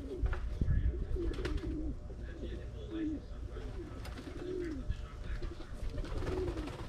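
Pigeons cooing: a string of low, repeated coos, with a few low thumps and clicks in the first second or two.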